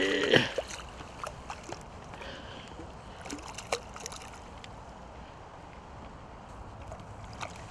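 Hooked pike thrashing at the water's surface beside the boat: a few short, sharp splashes over a steady wash of sloshing water.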